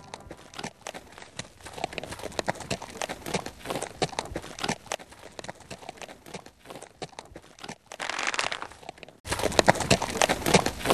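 Hoofbeats of several horses, a rapid irregular clatter. It jumps suddenly louder about nine seconds in.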